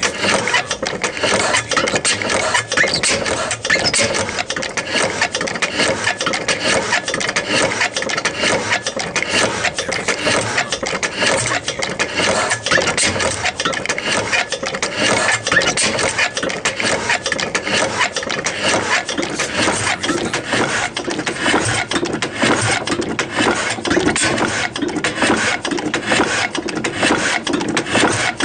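Old steam engine running steadily, a rapid, even mechanical clatter that does not let up.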